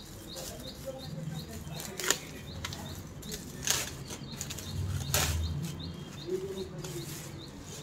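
Plastic courier mailer bag rustling and crinkling as it is pulled and torn open by hand, with three louder crackles about two, four and five seconds in.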